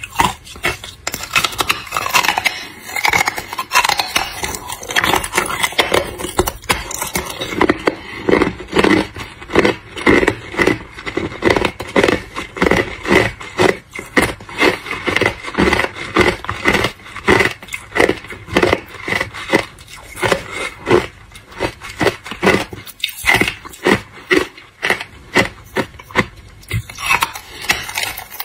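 Hard ice being bitten and chewed close to the microphone: crunching and cracking chews repeating about twice a second.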